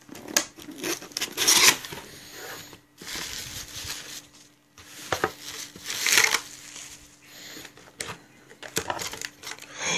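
Cardboard shipping box being opened by hand: the lid flaps lifted and bubble wrap and packing paper rustled and crinkled in irregular bursts, with a few sharp clicks and knocks as the items inside are handled.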